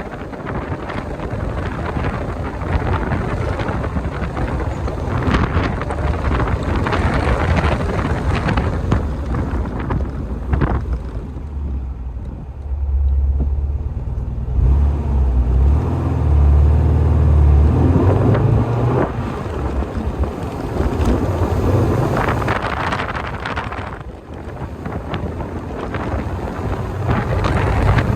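Wind buffeting the microphone inside a moving car: a steady rushing, with heavier low rumbling gusts for several seconds around the middle.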